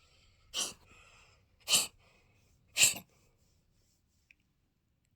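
Snoring: three short, sharp snorting breaths about a second apart, the last two the loudest.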